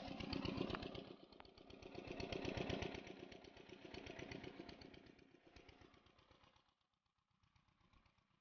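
An 8 hp single-cylinder diesel engine driving an irrigation water pump, running steadily with a rapid, even thudding beat. It fades away over the last few seconds.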